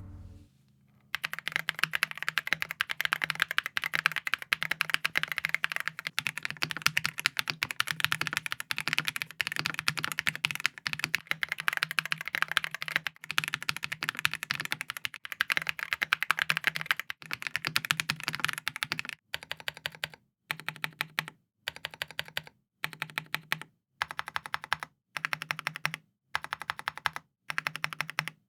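Typing test on Keychron Ultra mechanical keyboards, the aluminium-cased Q3 compared with the plastic-cased V3: fast continuous keystroke clacking for the first two-thirds, then short runs of keystrokes broken by brief silences.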